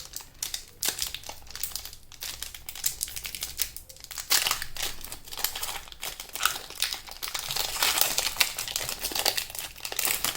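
Foil wrapper of a Pokémon TCG booster pack crinkling and rustling as it is handled and opened, with dense irregular crackles throughout.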